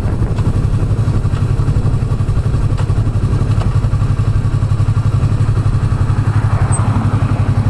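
2016 Yamaha YZF-R3's parallel-twin engine running steadily at low revs, an even low note with a fast regular pulse.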